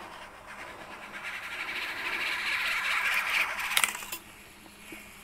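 Spinning reel being cranked to wind the jig up, a rattly whir that builds and stops about four seconds in.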